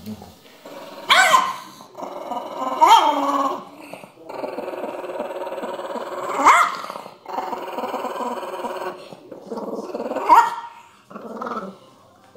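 A dog growling in long, low stretches, broken about four times by sharp barks, as it guards a toy from a hand reaching toward it.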